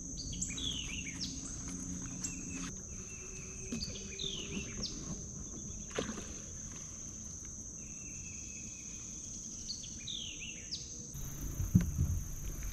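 Crickets or similar insects keep up a steady high trill while a bird calls several times with short falling notes. There are small clicks, and a couple of louder knocks near the end.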